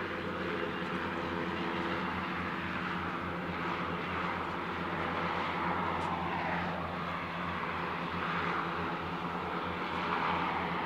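Passenger hovercraft's engines and propellers running steadily as it passes, over a hiss of wind and sea.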